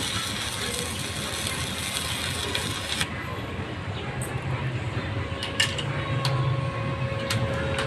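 A 300-ampere welding machine under test: a steady low hum with a dense hissing crackle that drops away about three seconds in, followed by a few sharp clicks.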